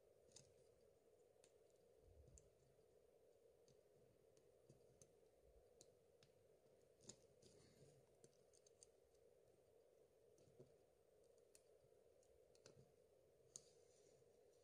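Near silence: faint, scattered ticks and clicks from fingers and a plastic pry tool pressing a flex connector onto a Samsung Galaxy S3's circuit board, over a steady low hum.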